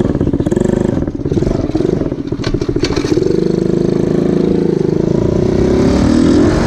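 Small quad ATV's engine running while being ridden, easing off briefly about a second in, then holding steady before its pitch rises near the end as it speeds up.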